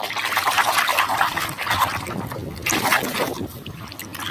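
Water splashing and sloshing as a muddy toy car is washed by hand in water, with a louder splash about two and a half seconds in.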